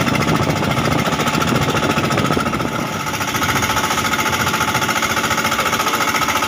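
A small engine on the fishing boat running steadily, making a loud, rapid, even chugging beat.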